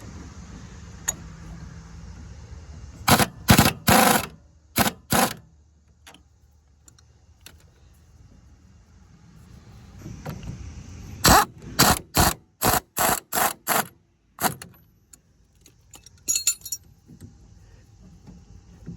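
Two runs of short, sharp metallic bursts, about five and then about seven, from hand-tool work on metal parts.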